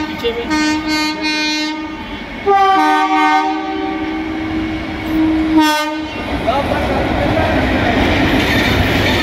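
A train horn sounds a short toot, then a long blast, and after a brief break a longer blast of about three and a half seconds that stops about six seconds in. Then comes the steady rumble and wheel clatter of an Indian Railways train of LHB coaches, hauled by an electric locomotive, passing close by.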